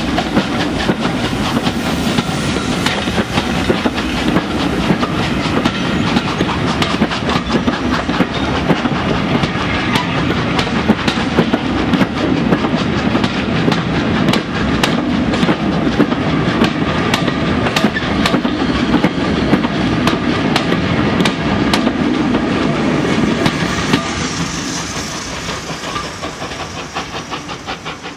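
Train of passenger coaches rolling past close by, the wheels making a rapid, steady clickety-clack on the track. It dies away over the last few seconds as the train draws off.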